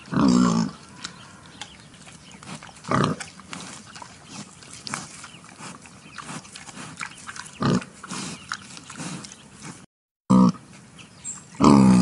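Wild boar grunting: about five short, loud grunts a few seconds apart, with soft crackling between them. The sound cuts out completely for a moment near the end.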